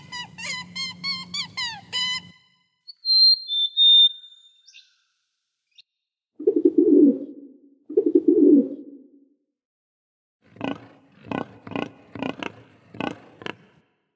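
A string of separate animal calls: high squeaky chirps for the first two seconds, a brief high whistle, two low cooing calls in the middle like a rock pigeon's, then about seven short, sharp calls in quick succession near the end.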